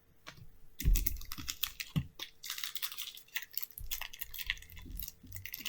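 Irregular crisp crackling and clicking of Pokémon trading cards and packaging being handled, starting about a second in, with a few soft thumps.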